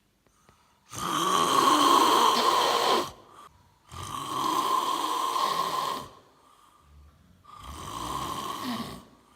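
A sleeping man snoring heavily: three long, loud snores about a second apart, the last a little quieter. The uploader takes this snoring for a sign of sleep apnea.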